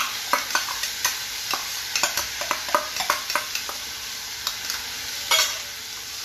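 Soaked poha scraped out of a steel bowl into a hot steel kadhai of spinach over a steady sizzle, with a silicone spatula clicking and tapping against the steel bowl and pan, one louder knock near the end.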